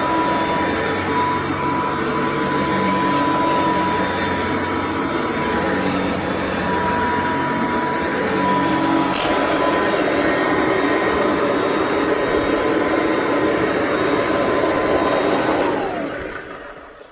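Kirby D50 upright vacuum running steadily over carpet, a motor whine over the fan and brush noise, its front motor bearing freshly replaced. Near the end it is switched off and winds down, the whine falling in pitch as it stops.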